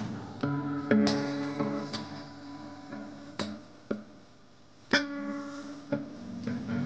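Background music: plucked guitar notes ringing over a backing, cut through by several sharp percussive hits.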